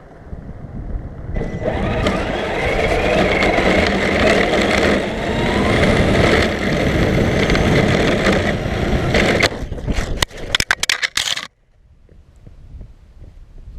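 Electric Traxxas RC car driving fast, heard from a camera mounted on the car: a steady rush of motor and tyre noise with a motor whine that rises and falls. About nine and a half seconds in comes a quick string of knocks and clatters as the car hits snow and the camera tears off its adhesive mount, and then the sound cuts off suddenly.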